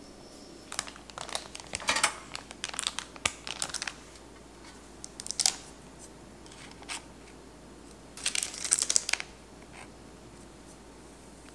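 Parchment paper crinkling and rustling as it is handled, in three bursts of crackly noise. The first starts about a second in and lasts some three seconds, a short one comes near the middle, and another comes about eight seconds in.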